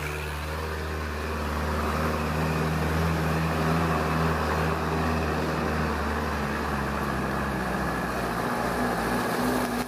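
Diesel engines of light palm-fruit trucks running with a steady low drone, one truck passing close by and then a Mitsubishi truck approaching.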